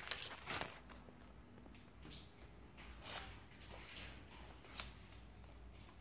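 Faint rustling of a square sheet of origami paper being handled and folded in half, with a few short brushing strokes as the fold is pressed down.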